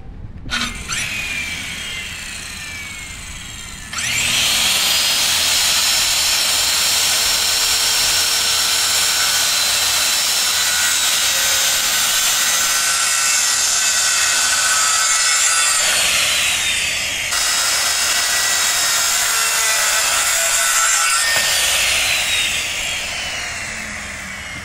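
Corded circular saw cutting through a thick wooden post. The motor starts loud about four seconds in and runs under load through the cut, dipping briefly about two-thirds of the way through. Near the end it is released and winds down, its pitch falling.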